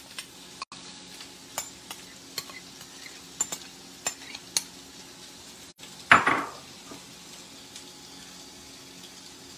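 A spoon scraping and tapping against a glass bowl as sautéed onions and diced peppers are scraped into a pot of noodles in Alfredo sauce: a string of light clicks, with one louder scrape about six seconds in, over a steady low hiss.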